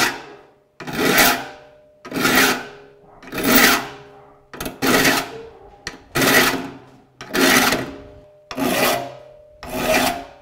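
A saw file rasping in the gullets of a rip hand saw's teeth as they are sharpened, filed straight across with no fleam. It goes in about eight even strokes, one every second and a bit, and the saw plate rings faintly on each.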